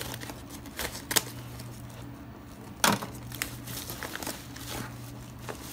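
Scissors snipping through a plastic courier mailer, then the thin plastic crinkling as the bag is pulled open, with scattered light clicks and one louder snap near the middle.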